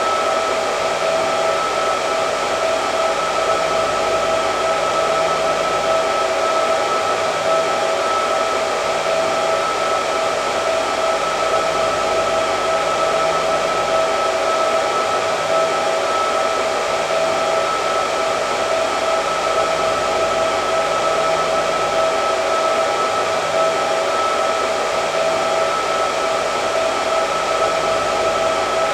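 Electric hair dryer running continuously: a steady rush of air with a constant motor whine.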